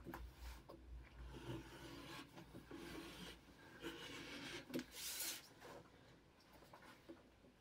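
Faint scraping and rubbing of a utility knife blade drawn along a metal ruler, slicing a sheet of gray backing material, with a brief louder rasp about five seconds in.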